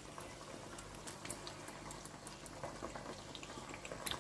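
Thick, oily Nigerian tomato stew with meat simmering in a pot, faintly bubbling with scattered small, irregular pops.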